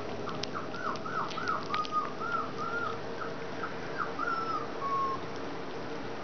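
Collie puppies whining: a quick string of short, high squeaky whines, about two a second, ending in one longer, flat whine about five seconds in, with light clicking and smacking from puppies eating mushy food.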